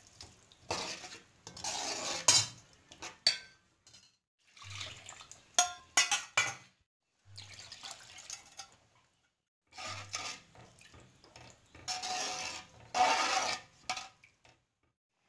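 Slotted steel ladle stirring and clinking against the pan while water is poured into thin gram-flour sambar, in intermittent bursts of sloshing and scraping with a few sharp clinks.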